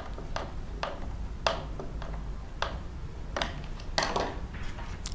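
Scattered light clicks and taps, about a dozen at irregular spacing, from hands working a screwdriver at the charge controller's terminal screws and handling the solar kit's chassis.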